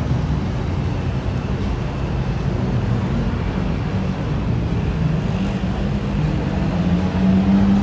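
Steady low rumble of city road traffic, with a vehicle engine hum that grows louder near the end.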